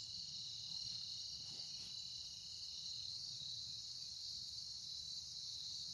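Steady high-pitched chorus of insects, crickets among them, with a second thin steady trill that stops about halfway through. A few faint soft rustles of rope and canvas being handled lie underneath.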